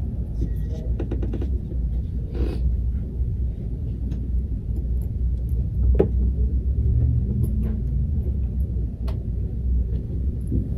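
A steady low rumble with a few scattered light knocks and clicks.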